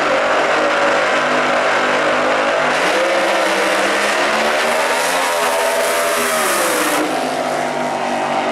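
Supercharged V8 of a Top Doorslammer Corvette drag car at full throttle down the quarter mile. The engine note climbs, then falls away about seven seconds in as the car lifts off at the end of a roughly six-and-a-half-second pass.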